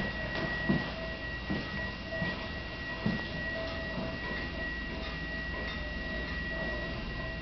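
Soft footsteps at an even walking pace, slowing off after about three seconds, over a steady high-pitched whine and a low hum.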